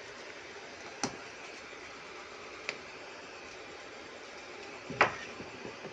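A metal ladle stirring a simmering pot of coconut-milk tofu and tempeh stew (lodeh), clicking against the pan about a second in and again a couple of seconds later, with a louder knock near the end, over a steady hiss.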